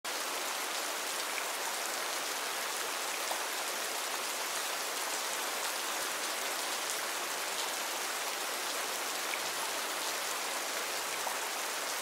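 Steady rain falling, an even hiss with faint scattered drop ticks.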